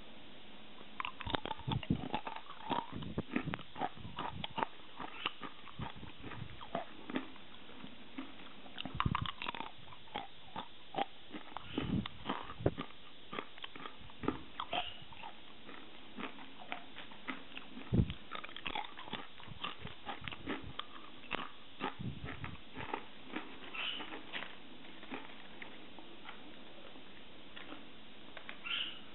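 Close-up crunching and chewing of crisp, sesame-coated stingray-fin crackers (ei-hire senbei): irregular sharp crackles, several a second at times, that thin out near the end.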